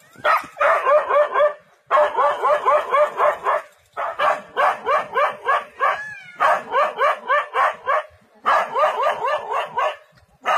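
A dog barking rapidly and repeatedly at a leopard, in five bursts of sharp barks at about five a second with short pauses between them: defensive alarm barking at a predator.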